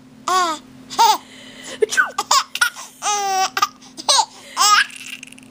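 A baby laughing in short, high-pitched bursts, about five of them, with one longer squeal about three seconds in.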